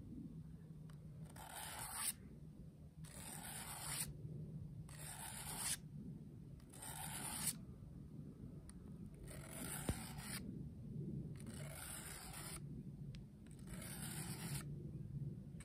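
Bushcraft knife being sharpened on a diamond sharpening plate: seven slow push strokes of the blade's bevel across the plate, each a hissing scrape about a second long, coming about every two seconds.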